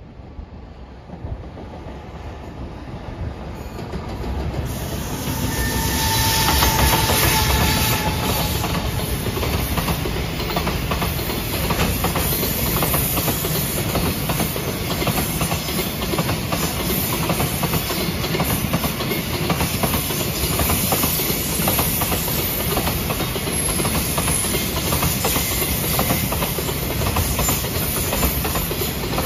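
Container freight train passing close by: the sound swells over the first six seconds as the train comes up, then settles into a steady run of wheel clatter over the rail joints and rumble from the container wagons rolling past. A brief steady high tone sounds about six seconds in, near the loudest point.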